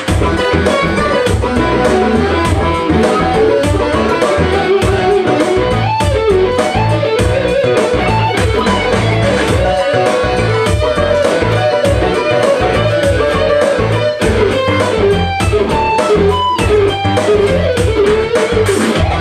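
Electric guitar played through a Laney combo amp, picking a moving lead melody over a steady beat and a low bass line.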